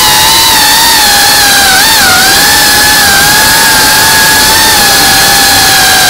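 GEPRC CineLog35 FPV quadcopter's brushless motors and propellers whining, heard close from the onboard camera over a loud rush of wind and prop wash. The whine holds a fairly steady pitch, wavers briefly about two seconds in, and begins to sink near the end as the throttle eases.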